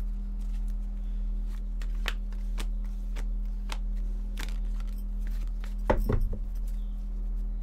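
Tarot cards handled on a table: soft clicks and flicks as cards are slid through the deck, then a louder rustle and slap about six seconds in as a card is laid down on the spread. A steady low hum runs underneath.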